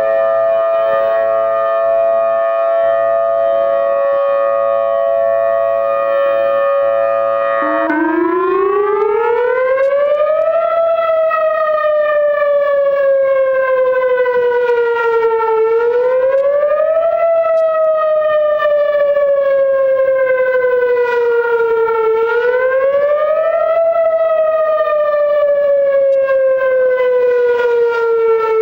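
Whelen WPS electronic outdoor warning siren, programmed to imitate a Federal Signal Thunderbolt, sounding loudly. It first holds a steady alert chord of several pitches, which the uploader says is made dissonant by echoes off a nearby school and houses. About eight seconds in it switches to a wail that rises quickly and falls slowly, once about every six and a half seconds.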